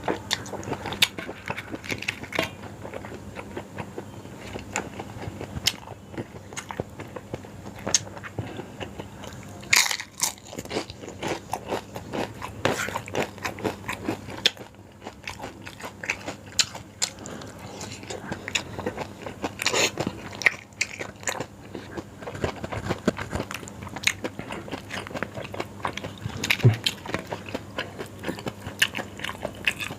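Close-up eating sounds of a person chewing and biting into yong tau foo, with irregular wet clicks and crunches from the mouth.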